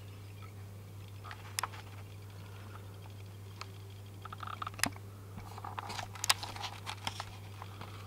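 Scattered light clicks and taps from a person climbing a staircase while holding a camcorder, a few at first and then a quick cluster in the second half, over a steady low hum.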